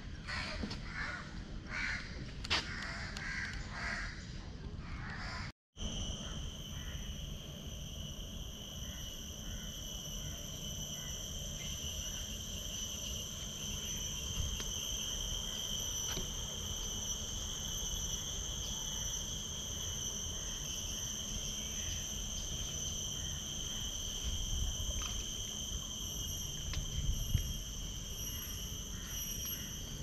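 Crows cawing for the first five seconds or so. After an abrupt cut, a steady high insect drone of several pitches runs on over low outdoor background noise.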